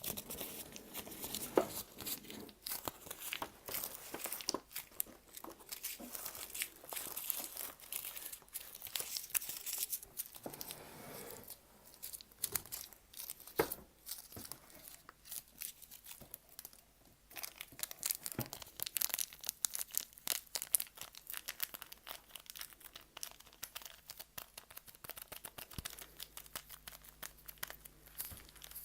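Close-miked crinkling and crumpling of a crinkly material, a dense run of irregular crackles with a few sharper clicks.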